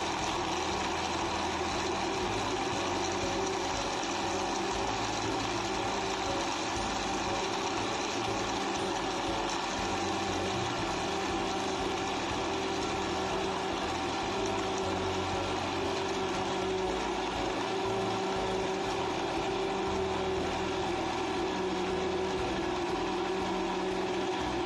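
Electric drink blender running steadily at one speed, blending an iced drink in its jug.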